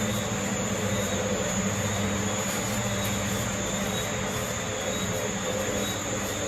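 Steady mechanical drone with a low hum, like a vehicle or motor running.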